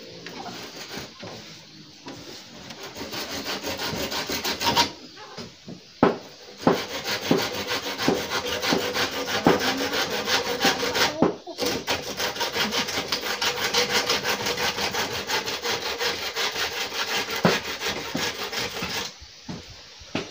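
Hand saw cutting through a wooden roof pole in fast, even back-and-forth strokes, in three runs with short pauses about 5 and 11 seconds in.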